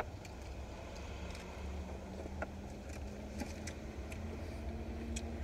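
Low steady rumble inside a parked vehicle's cabin with the engine idling, and a faint steady hum joining about a second in. A few faint clicks come from eating and food packaging.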